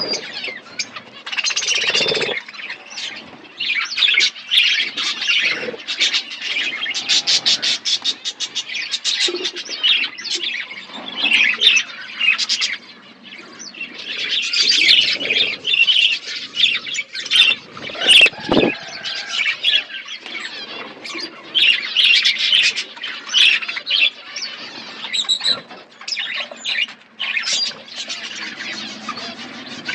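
Several budgerigars chirping and chattering together without a break, many short squawky calls overlapping.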